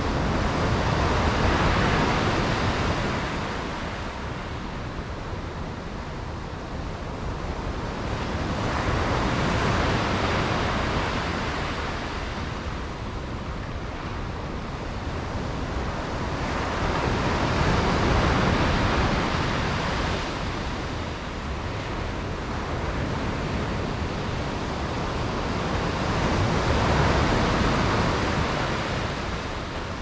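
Sea waves breaking on the shore, swelling and fading four times about eight to nine seconds apart, over a steady low rumble of surf.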